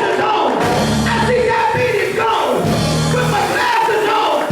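Loud gospel music from a church band, with held bass notes about a second long and raised voices singing or shouting over it.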